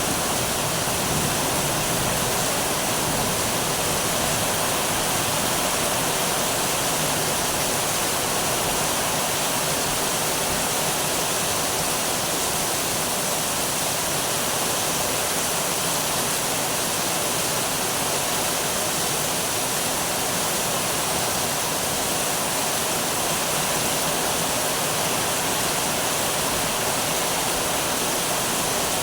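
Heavy rain pouring steadily in a thunderstorm, an even rushing hiss, with the low rumble of a thunderclap dying away in the first second.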